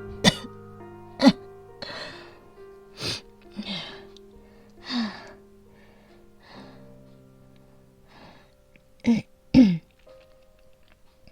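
A woman coughing in short, separate coughs, with a quick pair near the end and audible breaths between them, over soft background music with held notes. The coughing is asthmatic, from what she calls a mild asthma attack.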